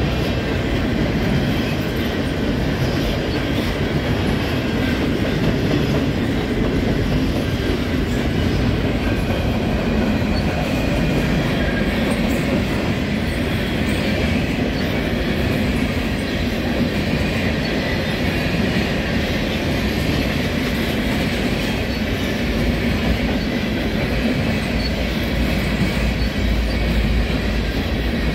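Covered hopper cars of a freight train rolling past at steady speed: continuous noise of steel wheels running on the rails.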